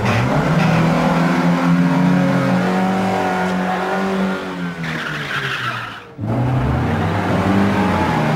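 A car engine revving hard as the car is driven in fast manoeuvres, its pitch rising and falling, with tyre squeal about five seconds in. A sudden break just after six seconds, then the engine again.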